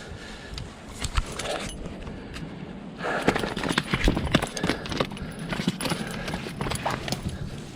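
A run of irregular clattering knocks and clicks, thickest from about three seconds in until near the end.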